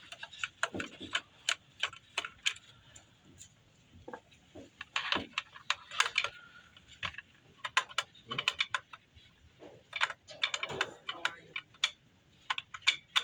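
Irregular small clicks and taps of a Phillips screwdriver and metal parts as screws are worked out of an inkjet printer's printhead carriage, some in quick runs.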